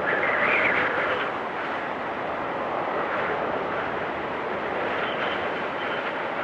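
Wind storm blowing: a strong gust in the first second or so, then a steady rush, with a faint high whistle coming in near the end.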